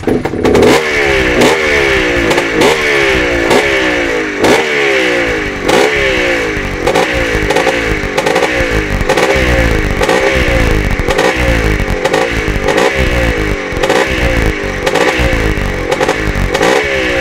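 Greeves Challenger's single-cylinder two-stroke engine starts abruptly and is revved over and over in quick throttle blips. The pitch climbs and drops back with each blip.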